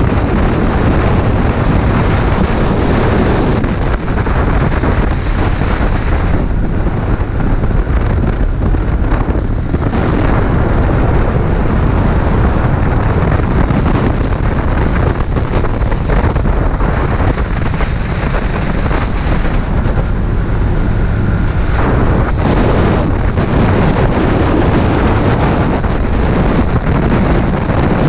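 Wind rushing and buffeting over the microphone on a moving Motron Revolver 125cc motorcycle, with the bike's running engine mixed in underneath; loud and steady throughout.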